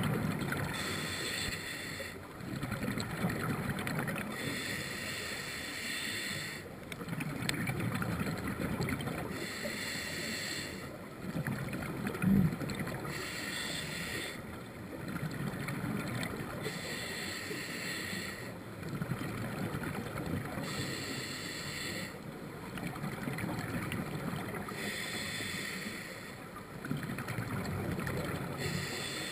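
A scuba diver's regulator breathing underwater: a hiss on each inhale alternates with the bubbling rumble of exhaled air, in slow regular breaths about one every four seconds. A single low thump sounds about halfway through.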